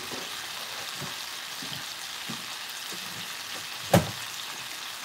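Chicken and spinach sizzling steadily in a frying pan as their soy sauce and sake sauce reduces, with one sharp click about four seconds in.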